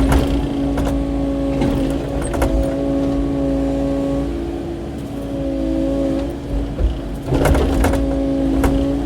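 Kubota KX080-4 excavator's diesel engine running steadily at working speed while digging out brush, with its pitch shifting slightly under hydraulic load in the middle. Sharp knocks and cracks of rock and brush near the start and again in a cluster near the end.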